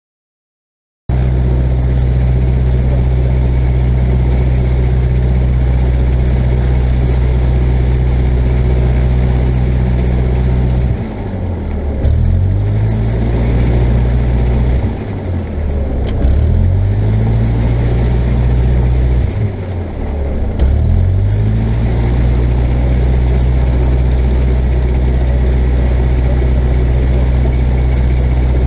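Cessna 172's piston engine and propeller running steadily, heard loud from inside the cabin. It starts about a second in, and in the middle the engine speed dips and recovers three times before settling back to its steady note.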